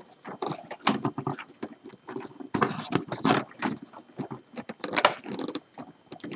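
Rolled paper tubes rustling, scraping and clicking against one another as they are woven by hand in and out of upright paper-tube stakes, in a run of irregular short sounds.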